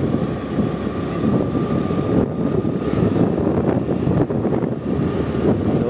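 Wind buffeting the microphone of a moving vehicle, mixed with the steady running noise of the vehicle and road.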